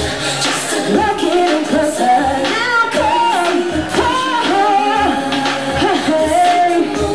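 A woman singing live into a microphone, her voice gliding and holding notes, over music with a steady beat.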